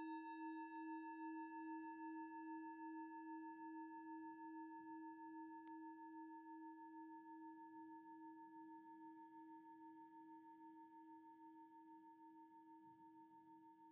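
Singing bowl struck once, ringing on with a slow wavering pulse and fading gradually.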